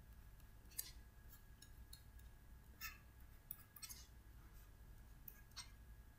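Faint, scattered taps and scratches of a stylus on a writing tablet as hydrogen labels are handwritten, over quiet room tone.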